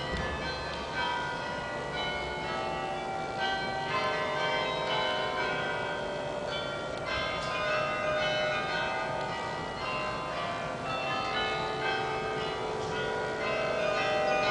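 Carillon bells playing a tune: many struck notes one after another, each ringing on and overlapping the next.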